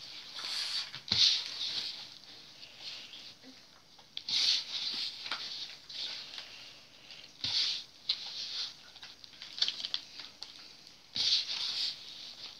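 A hand rubbing and stirring dry flour mixture in a bowl: rustling, scraping strokes in irregular bursts every two or three seconds, with a few light clicks of fingers against the bowl.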